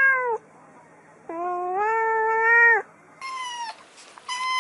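A calico cat meowing: the tail of one meow, then a long, drawn-out meow. After that, a kitten's high-pitched mews, twice.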